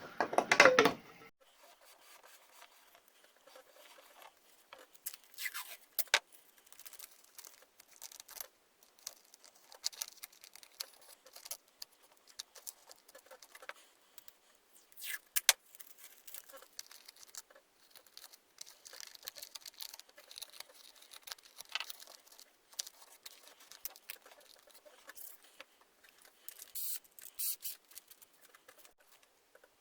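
Paintbrush working white acrylic primer onto plastic handles: faint, irregular scratchy brush strokes with small clicks and taps as the parts are handled.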